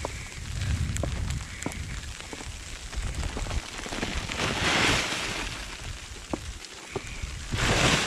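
Wind buffeting the camera microphone as a low rumble, with scattered light crunches of footsteps in snow. Two short rustling swells, about halfway and near the end.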